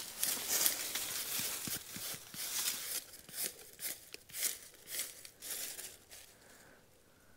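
Dry leaf litter and soil rustling and scraping in a run of uneven strokes, which stops about six seconds in.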